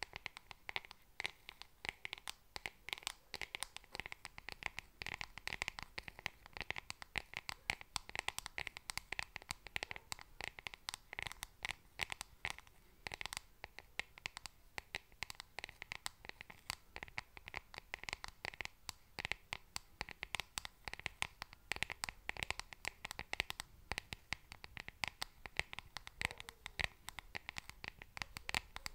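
Long fingernails tapping and scratching quickly on a small makeup product held close to the microphone, in dense, irregular clicks with some crinkling.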